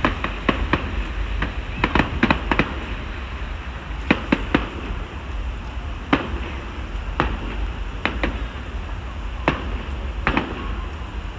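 Fireworks going off: sharp bangs and cracks at irregular intervals, roughly one a second, over a steady low rumble.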